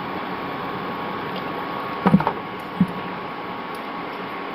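Steady fan-like hiss with a faint whine, typical of an induction cooktop's cooling fan running at high power, with a few short knocks about two seconds in and one more shortly after.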